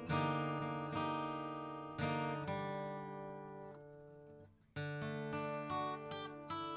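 A 1965 Epiphone Texan acoustic guitar being strummed. Chords are struck about once a second and ring out, dying away almost to silence about four and a half seconds in, before the strumming starts again.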